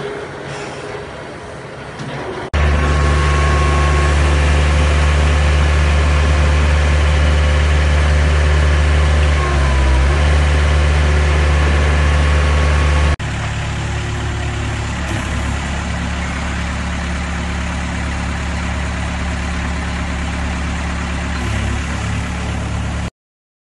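SFEC SFT60 mini HDD drill's engine running steadily at constant speed. It comes in several clips joined by abrupt cuts, is loudest in the middle section, and cuts off near the end.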